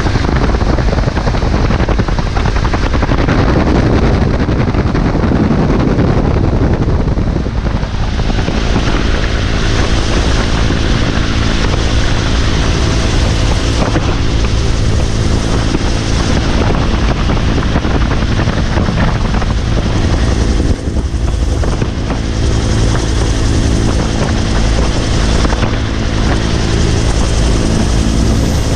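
Vietnam-era military helicopter running: a loud, steady rotor and engine noise with a constant hum of several steady tones. Music fades out in the first several seconds.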